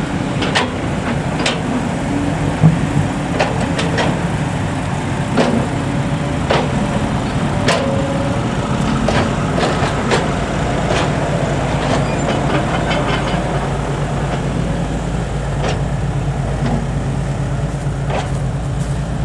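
Heavy diesel engine running steadily, with scattered short knocks and clatter over it.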